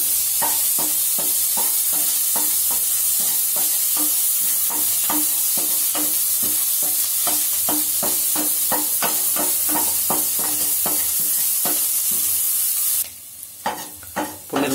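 Green chillies, garlic and salt sautéing in a little hot oil in a stainless steel pot: a steady sizzle with a spatula scraping and stirring about three strokes a second. The sizzle cuts off suddenly near the end while the stirring goes on.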